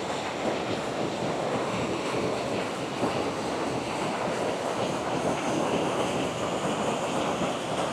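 Creek water rushing steadily, running high after rain.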